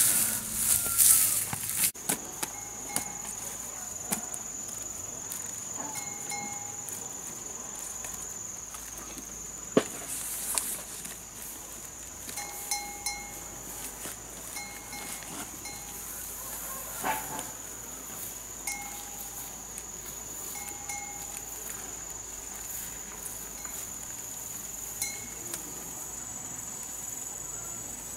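Steady high-pitched insect drone, with short pitched notes repeating every second or so and a few sharp knocks.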